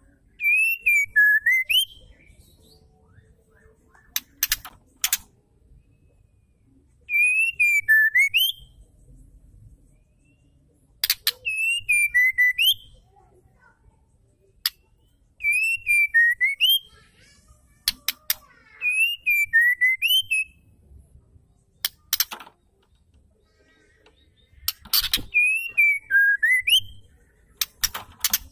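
Female white-rumped shama calling: a short whistled phrase that dips and then rises, with high chips above it, repeated six times about every four seconds. Sharp clicks fall between the phrases.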